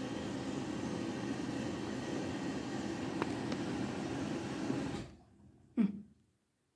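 Front-loading washing machine in a high-water rinse: a steady noise of water in the drum that stops about five seconds in. A short, loud sound falling quickly in pitch follows near the end.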